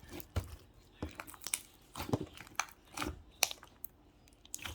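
Irregular close-up clicks and short crunchy rustles, a dozen or so small handling noises with brief gaps between them.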